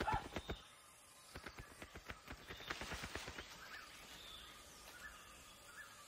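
Soft crackling and rustling of dry twigs and plant matter in a hanging nest as a bird works on it, quickest at the very start and then in scattered clicks, with a few faint bird chirps.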